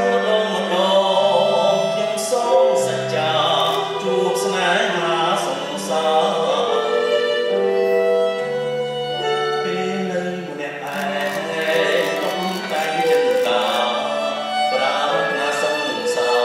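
Live Khmer music: a singer's voice holding long notes that step between pitches, over a bowed string instrument. A run of light clicks comes in about two-thirds of the way through.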